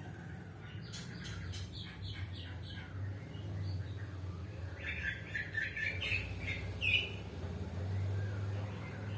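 Small birds chirping: a quick run of short, high chirps about a second in, then a busier cluster of chirps around the middle, over a low steady hum.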